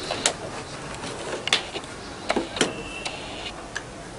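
Sharp plastic clicks and snaps as a knife blade pries at the snap-fit clips of a Samsung SyncMaster monitor's plastic case. There are four main clicks, unevenly spaced, with a brief high squeak just after the last of them.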